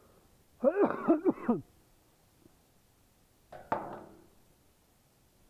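A man with a bad cold coughing: a quick run of several coughs about half a second in, then another cough or two near the middle.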